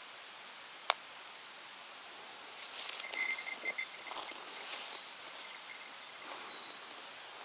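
Outdoor ambience: a steady hiss with one sharp click about a second in, then a stretch of rustling and crackling with brief high chirps in the middle.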